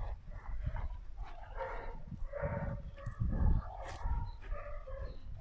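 Dobermann giving several short barks and whining yips while it jumps up and tugs in rough play.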